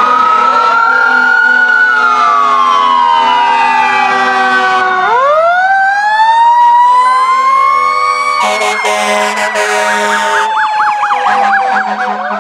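Sirens of several fire trucks and a police SUV wailing at once, overlapping tones slowly rising and falling. About two-thirds of the way through, a fast yelping warble joins them.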